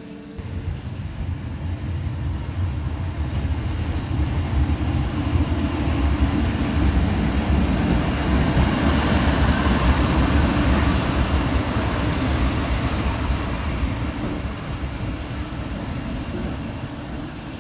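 ČD class 362 electric locomotive running light past at close range: a rumble of wheels on rail and running gear that swells and is loudest about halfway through, then fades away.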